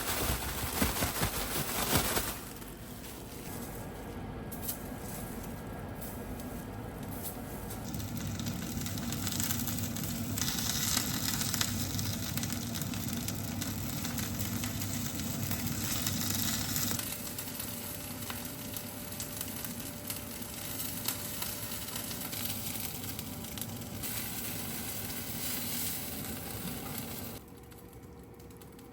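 Food sizzling as it fries in a pan, loudest in the first two seconds, then a steady sizzle that rises and falls and drops away sharply near the end.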